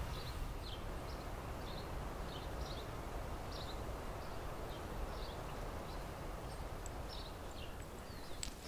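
Forest ambience: a steady rushing background with a small bird giving short high chirps, one every half second or so.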